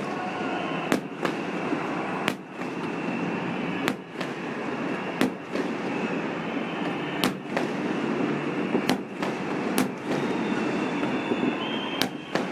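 Fireworks display: about a dozen sharp bangs, spaced irregularly roughly a second apart, over a dense, steady crackling rush.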